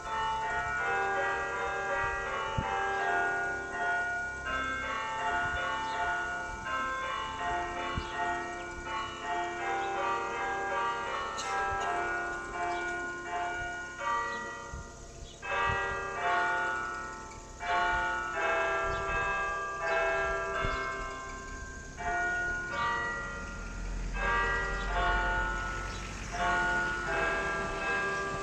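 Several church bells ringing together in a peal, with many overlapping strikes in quick succession and their tones ringing on, broken by a couple of brief dips.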